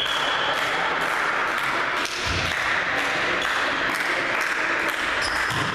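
A referee's whistle blows once, briefly, right at the start: the signal for the serve. A volleyball rally follows in an echoing sports hall, with a thud of the ball being struck about two seconds in, scattered knocks, and short squeaks near the end over a steady hall din.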